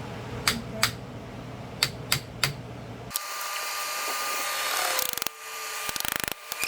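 Several sharp clinks of metal starter-motor parts being handled, then about three seconds in a small electric power tool starts and runs with a steady whine, dipping briefly twice near the end.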